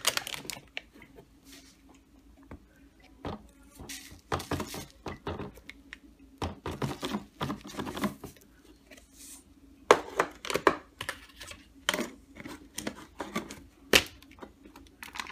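Foil seal of a ground-coffee can crinkling and tearing as it is peeled off, then ground coffee being tipped from the can into a paper filter in a drip coffee maker, with rustles, knocks and sharp clicks of handling. Near the end a sharp click as the plastic lid is pressed onto the can. A faint steady hum runs underneath.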